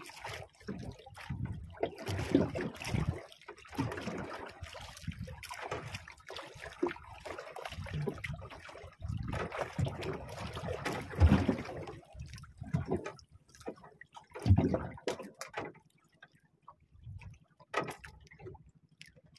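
Sea water lapping and sloshing against a small fishing boat, with irregular low thumps and surges, the loudest about eleven and fourteen and a half seconds in; it grows quieter near the end.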